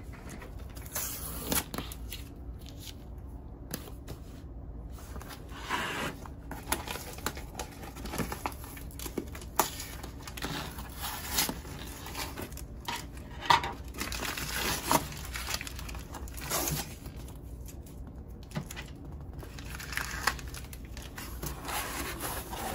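Cardboard record mailer being torn open by hand: irregular tearing, scraping and crinkling of cardboard and paper, in short uneven bursts.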